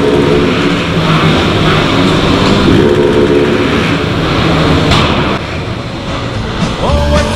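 Motorcycles riding in a group through a brick road tunnel, with the camera bike's Husqvarna 701 Supermoto single-cylinder engine running under throttle among the others. The sound drops off a little over five seconds in as the bikes leave the tunnel.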